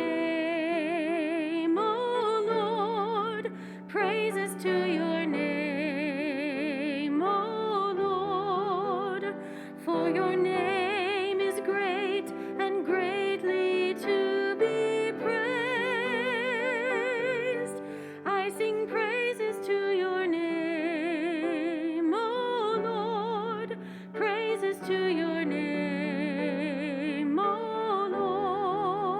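A slow hymn: a melody with a strong, even vibrato over held chords, moving in phrases with brief breaths between them.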